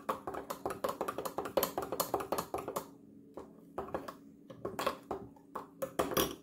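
A utensil whisking and clinking rapidly against the side of a jug as beaten egg, honey and soured milk (buttermilk substitute) are mixed together. The quick taps run densely for about three seconds, then slow to scattered taps.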